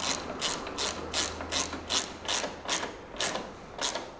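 Ratcheting T-handle driver clicking in about ten short bursts, one for each back-stroke, roughly every 0.4 s, spacing out a little near the end, as a bolt is tightened by hand.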